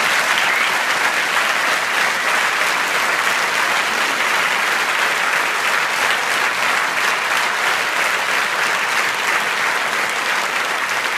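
A theatre audience applauding: dense, steady clapping from a large crowd.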